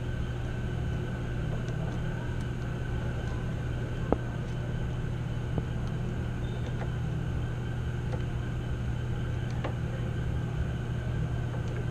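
Steady low machinery hum, with a few faint clicks of pliers and wires being worked inside the electrical panel.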